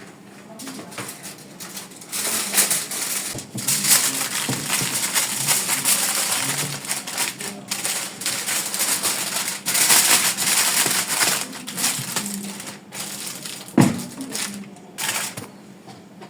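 Aluminium foil crinkling and crackling as it is folded and pressed around food, with one sharp knock near the end.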